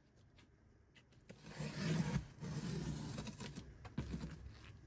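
Utility knife slicing through the packing tape on a cardboard box, a scraping, rubbing sound that starts about a second and a half in.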